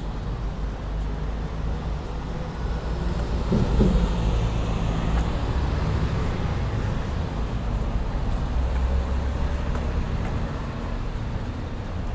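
Street traffic rumbling steadily, with a motor vehicle passing close by and growing loudest about four seconds in.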